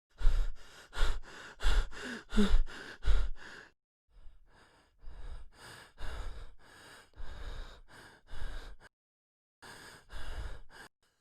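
A person panting heavily, as if out of breath from running: quick, loud, noisy breaths in and out, about two to three a second, broken by two short pauses.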